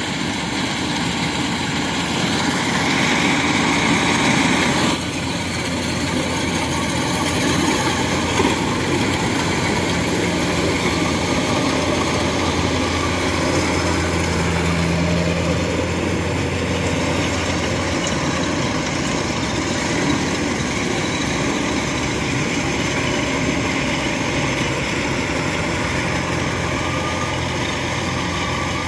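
Kubota rice combine harvester working a rice crop, its diesel engine and threshing machinery running steadily under load.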